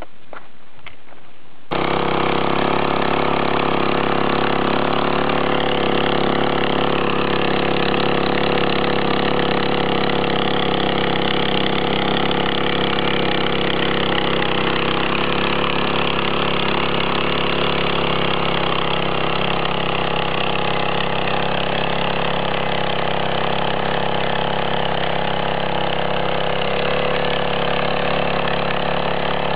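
Mini power tiller's small air-cooled engine running steadily under load, starting abruptly about two seconds in, as its screw ridger works the soil up over potato rows.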